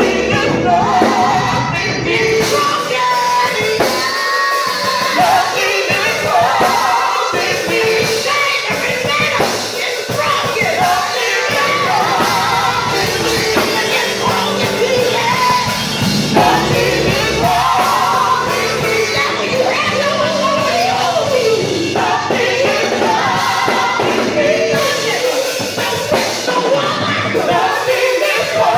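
Gospel vocal group of men and women singing together into microphones, with a live band of keyboard and electric guitar playing along.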